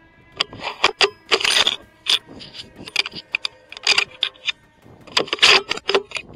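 Irregular clicks and rattles in short clusters, the biggest about a second and a half in and again about five seconds in: something hard being handled or worked.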